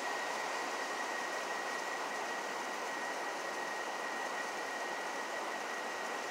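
Steady hiss of background noise with a thin, steady high whine running through it; no thunderclap.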